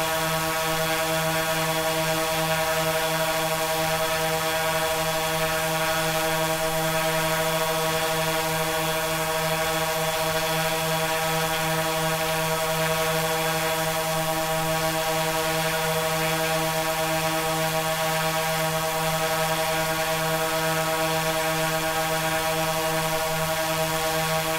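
A steady, unchanging pitched drone with many overtones, holding the same note and loudness throughout.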